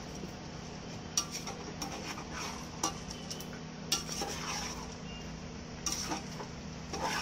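A metal spoon scraping and clinking against a metal cooking pot while stirring soaked rice into fried soya chunks and potatoes, in irregular knocks and scrapes over a steady low hum.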